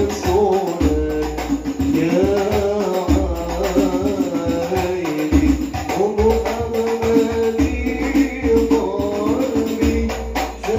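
Hadroh ensemble performing sholawat: rebana frame drums and jingles beating a steady rhythm under a man's singing voice, which holds a long note in the second half.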